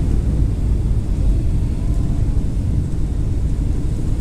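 Steady low rumble of cabin noise inside a Boeing 737-800 on final approach just before touchdown: its CFM56 engines and the air rushing past the fuselage.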